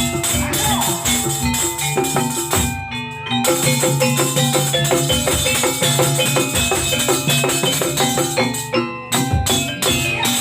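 Jaranan gamelan music: drums and tuned gongs and metallophones playing a fast, dense rhythm, with a brief dip about three seconds in.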